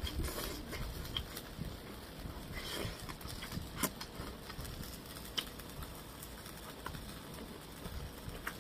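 Close-up chewing and mouth noises of someone eating grilled pork belly, soft and irregular, with a few sharp clicks, the clearest about four seconds in.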